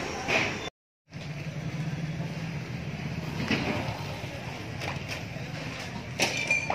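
A steady low engine hum with a few short knocks over it; the sound cuts out briefly about a second in.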